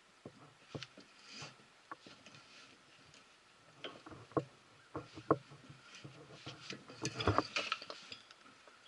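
Stevens front-end tool reaming the worn spindle-bolt bore of a Model T Ford front axle: irregular metallic clicks, knocks and short scrapes of steel on steel, with a louder cluster of scraping and clatter about seven seconds in.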